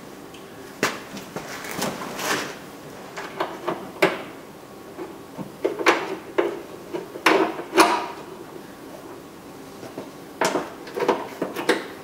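Irregular clicks and light knocks a second or two apart as a plastic tail light assembly is handled and seated against the car body and its mounting bolts are started by hand, with a small cluster of clicks near the end.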